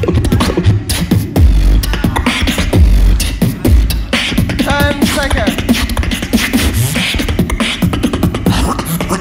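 A beatboxer performing into a handheld microphone over a PA: fast clicks and snare-like hits over deep bass booms in the first half, with a warbling pitched vocal effect about halfway and a low rising glide a little after.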